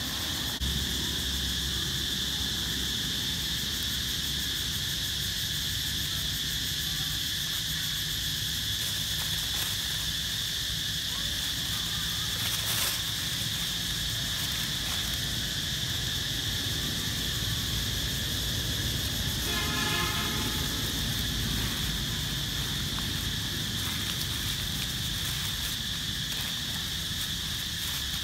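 Steady, high insect drone over a low rumble. About two-thirds of the way through there is one brief, high pitched call.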